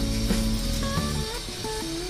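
Background music: a melody of short pitched notes, changing every fraction of a second, over held bass notes.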